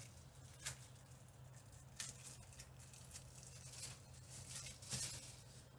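Faint rustling and a handful of light clicks from small plastic parts being handled by hand, with a low steady hum underneath.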